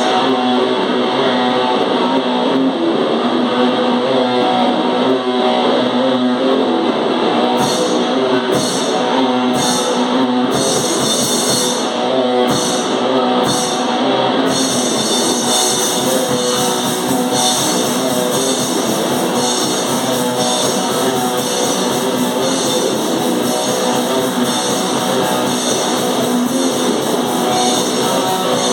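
A live hardcore/noise-metal band plays loud, distorted electric guitar over drums with no vocals. Partway through, the band plays a run of short stop-start hits before going back to a steady, dense wall of sound.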